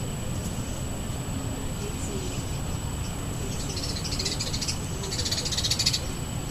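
A bird gives two harsh, rapid rattling calls, each about a second long, a little past the middle, over steady low background rumble.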